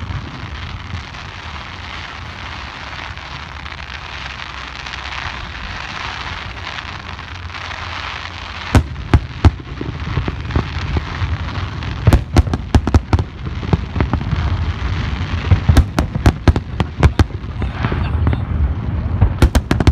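Fireworks display: a steady noise at first, then aerial shells start bursting with sharp bangs about nine seconds in. The bangs come in quick volleys through the second half.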